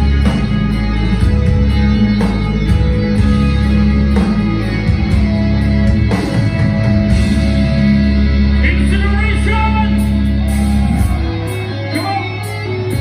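Live metal band playing loud through the PA: distorted electric guitars and bass hold long, heavy low chords with a higher guitar line over them. About eleven seconds in the low chords drop away.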